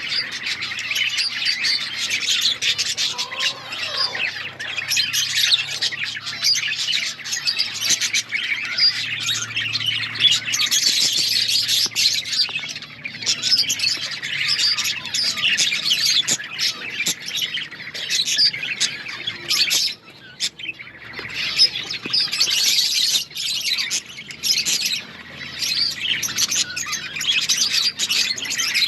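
A flock of budgerigars chirping, many birds at once in a dense, continuous high-pitched twitter with a few squawks, easing briefly about twenty seconds in.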